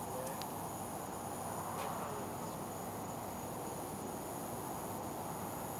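Crickets chirping in a steady, continuous high-pitched chorus.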